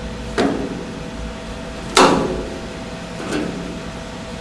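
A 1986 GMC square-body pickup's taillight housing clunking against the steel bedside as it is worked out of its opening. Three knocks, the loudest about two seconds in and a faint one about three seconds in, over a steady shop hum.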